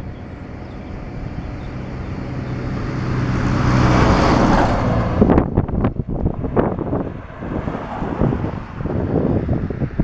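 A car passes close by: its engine and tyre noise swells to a peak about four seconds in and then falls away. Gusts of wind buffet the microphone after it.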